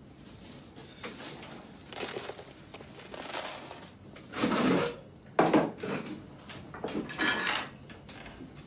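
Metal chain rattling and clinking in about five short bursts, some with a bright metallic ring: a shackle chain moving as the chained man shifts.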